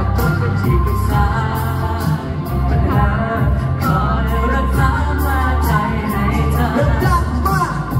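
Thai pop song sung live over a backing track with a steady beat and bass.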